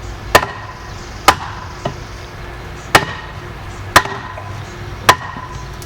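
Hammer blows on a scrap block of wood set on top of a 4x4 wooden fence post, driving the post down onto a steel reset pin spiked into the stump below. Five hard strikes roughly a second apart and one lighter tap, each with a brief ring.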